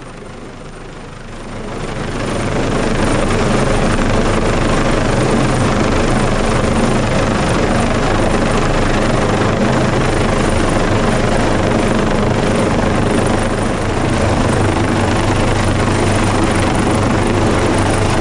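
Search-and-rescue helicopter, an AgustaWestland AW139, hovering low over the ship's deck during a winch lift: a loud, steady rotor and turbine noise that swells about two seconds in and then holds.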